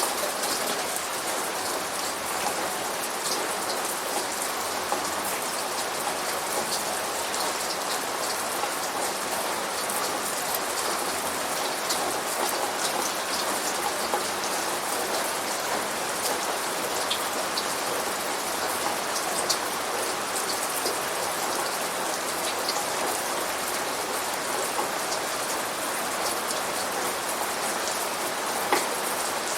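Steady rain falling, with many individual drops ticking sharply on a hard surface over an even hiss.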